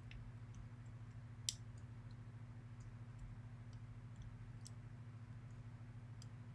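A few faint, sharp metallic clicks as small lock parts and a plug follower are handled while disassembling a pin-tumbler lock, the clearest about a second and a half in, over a steady low hum.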